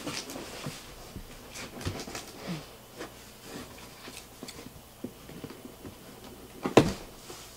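Light handling noises as a cardboard box is opened: scattered small clicks, taps and rustles, with one sharp knock near the end.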